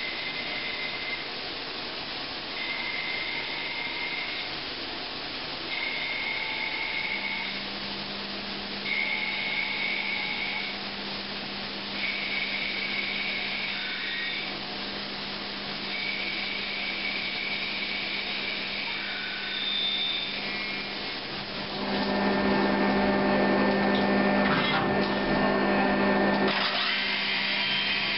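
Okuma Genos L300E-M CNC turning center machining a part under coolant spray: steady hiss of coolant and machine, with a high whine from the cutting that comes and goes in passes of a couple of seconds, over a steady spindle hum. Near the end the machine gets louder and busier for a few seconds, then settles.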